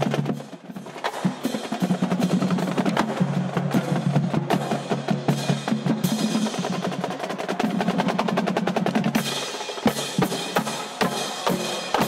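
Marching drumline playing fast snare-drum rolls and rhythmic patterns over bass drums. In the last few seconds the strokes become fewer and heavier, with a high shimmer over them.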